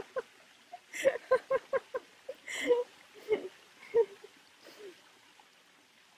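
A woman laughing: runs of short breathy 'ha' bursts, several a second, trailing off after about four seconds, with a faint steady rush of a waterfall behind.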